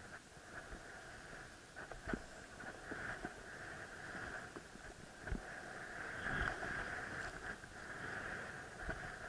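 Skis sliding and hissing over snow on a downhill run, the hiss swelling and fading with the turns, with a few short knocks as the skis hit bumps in the snow.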